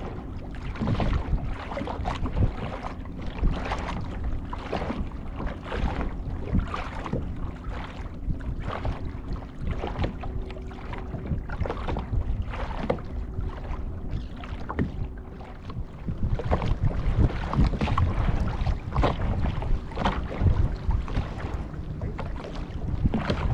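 Wind on the microphone and water sloshing against a kayak's hull, with irregular knocks and clunks on the hull throughout. A faint steady hum sits underneath.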